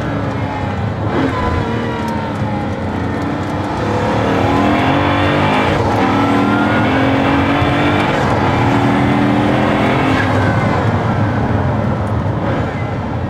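Pagani Huayra BC's twin-turbo V12 heard from inside the cabin while driving. The engine note gets louder about four seconds in and holds under load, then eases off slightly near the end.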